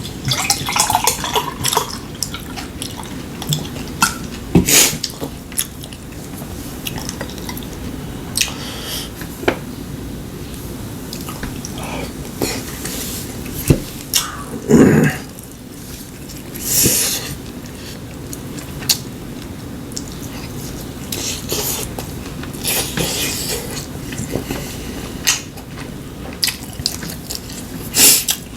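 Eating sounds at a table: chopsticks and spoons clicking against bowls and plates, with chewing, as scattered sharp clicks throughout and a few longer, noisier sounds in the middle.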